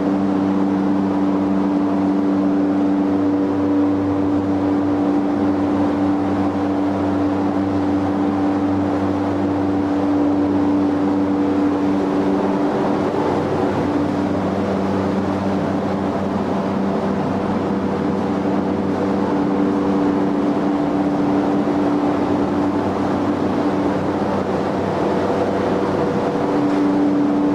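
A steady mechanical drone: a running motor's constant hum over a noisy rush, holding one pitch with no change in speed.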